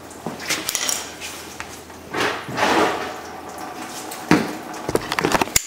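Irregular metal clatter and clinks of a socket and ratchet working a water pump bolt loose, with a sharp click near the end.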